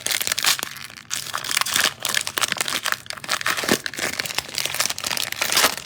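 Cellophane wrapper of a trading-card cello pack being crinkled and torn open by hand: a dense, irregular run of crackles and clicks.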